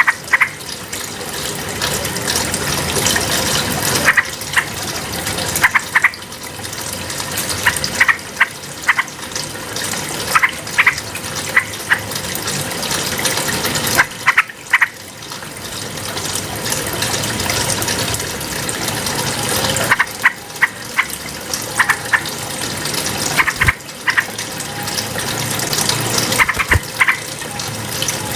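Yellow-vented bulbul (trucukan) singing: short, loud, bubbly phrases every second or two. Under them runs a continuous rushing noise that swells and fades every few seconds.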